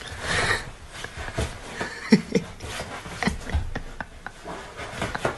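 A cat's claws catching and scraping on fabric sofa upholstery as it hangs on and slides down, with scattered small clicks and rustles. A couple of short vocal sounds come about two seconds in.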